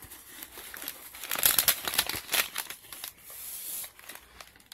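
Plastic packaging crinkling and rustling as items are moved around inside a cardboard shipping carton and a boxed stabilizer handle is pulled out, with a brief steadier scraping near the end.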